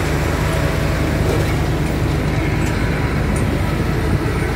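An engine running steadily at idle: a low, even drone made of several deep tones, with no change in speed.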